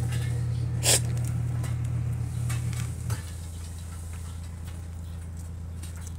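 A motor engine running with a steady low hum, which drops in level about three seconds in. A sharp click about a second in.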